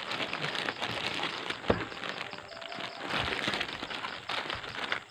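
Plastic poly courier mailer crinkling and rustling as it is handled and turned over, with one sharp crack about a third of the way in.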